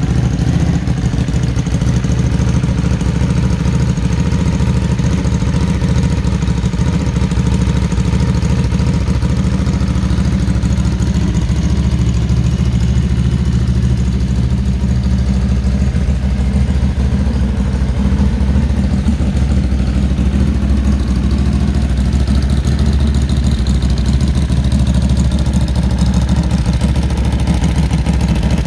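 Ducati Hypermotard 821 SP's 821 cc Testastretta L-twin engine idling steadily.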